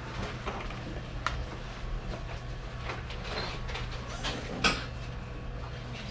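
Scattered clicks and light clatter of equipment being handled around a hospital bed, over a steady low hum. One sharp clack comes a little past two-thirds of the way through.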